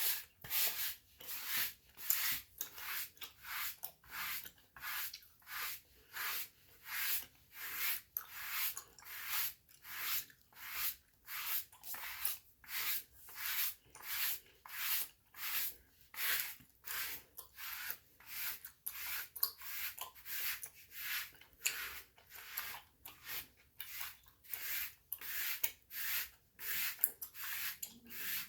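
Dry body brush with stiff bristles stroking over skin, in even, rhythmic scratchy strokes about two a second.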